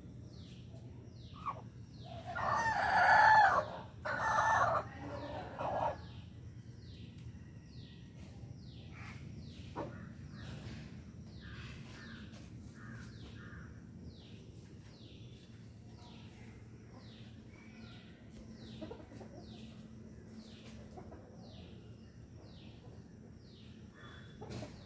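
Domestic rooster crowing once, loud, starting about two seconds in and lasting around four seconds. Under it, a high, falling chirp repeats about once or twice a second throughout.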